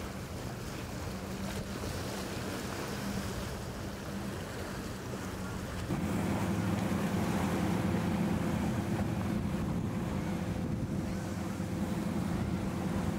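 Motor yacht engines running at speed, a steady drone under wind on the microphone and water rushing off the hull. About six seconds in the drone jumps louder as a boat runs close by.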